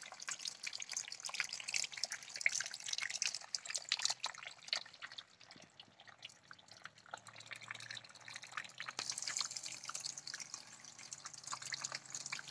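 Thin streams of water from a small homemade plastic-bottle fountain falling and splashing onto pebbles and water in a plastic tub. The splashing is a steady run of many small splashes and drips.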